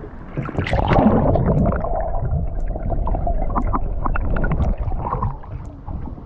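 Water gurgling and splashing close by, with small crackling splashes; it swells about half a second in.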